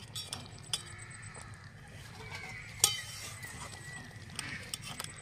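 A metal spatula knocking and scraping against a metal kadai while mustard sauce is spread over pieces of hilsa fish: a few sharp clinks, the loudest about three seconds in and a quick cluster near the end.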